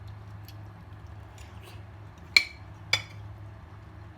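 Dishware clinking twice, about half a second apart, two sharp ringing knocks while eating a meal, over a steady low hum.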